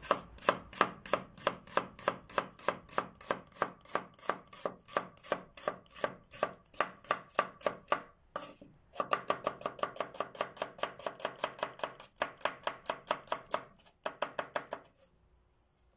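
Chef's knife slicing a red onion into thin half-rings on a bamboo cutting board: an even run of knife strokes knocking on the board, about three or four a second. After a short pause about halfway, a faster run follows and stops about a second before the end.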